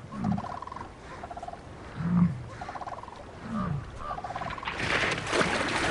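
American bison grunting: three low, downward-falling grunts a second or two apart. A louder rushing noise swells near the end.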